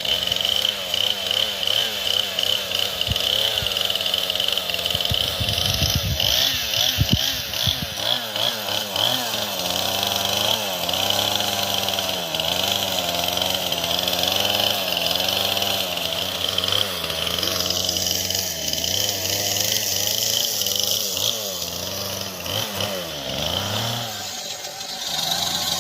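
Chainsaw running and cutting wood, its engine pitch rising and falling as the saw is worked.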